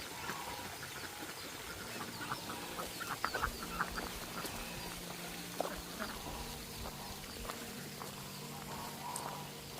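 Faint calls of farm poultry, with a run of light clicks and taps between about two and four seconds in.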